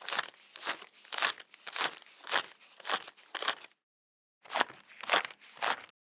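Paper banknotes being counted by hand, each note flicked off the stack with a crisp snap about twice a second. The counting stops for a moment of silence a little after halfway, then a second stack is counted at the same pace.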